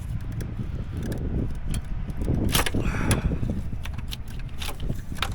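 Clicks, knocks and scraping of plastic hose connectors and clips as the purge valve solenoid is worked loose from its bracket and rubber boot, loudest about halfway through, over a steady low rumble.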